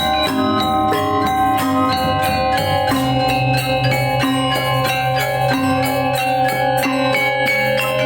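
Balinese gamelan gong ensemble playing a pelegongan-style piece: rapid, dense strokes on bronze metallophones ringing over one another in a busy, shimmering texture. A deep sustained tone joins about three seconds in.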